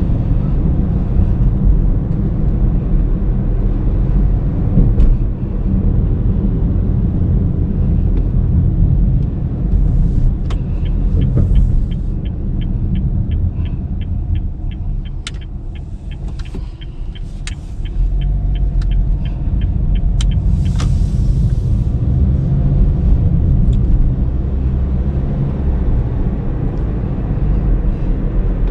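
Steady low road and engine rumble inside a 2019 Honda Brio CVT's cabin on the move. Midway, a turn-signal indicator ticks evenly, about two ticks a second, for around ten seconds. The rumble dips as the car slows, then builds again.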